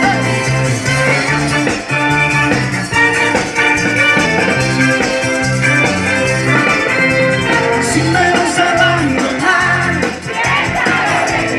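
Live cumbia band playing loud amplified music, with electric bass, keyboards and drums and a steady repeating bass line, heard from within the crowd.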